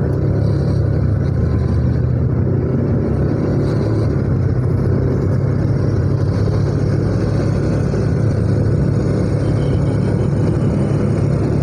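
Steady drone of a motorcycle being ridden on a busy road: engine and wind noise running evenly, with no sudden events.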